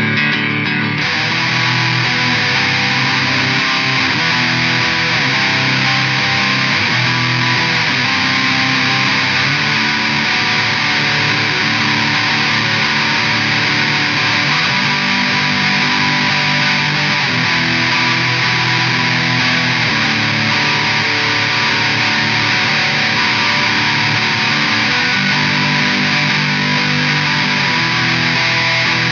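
Electric guitar (ESP LTD ST-213, strat style) through a Line 6 POD HD500X modeler, playing a riff of chords and notes, changing to a thick distorted tone about a second in.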